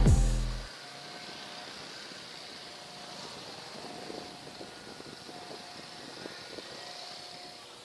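Background music ends within the first second, leaving faint outdoor ambience: a steady hiss with a short, faint tone recurring every second or two.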